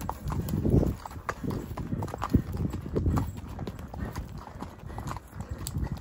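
A ridden horse walking, its hooves clopping at an uneven walking pace.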